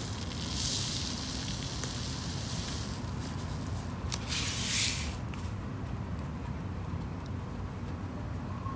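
Two short rustling hisses, about half a second and four seconds in, over a steady low background hum, from hands working sand and small rocks in a planter.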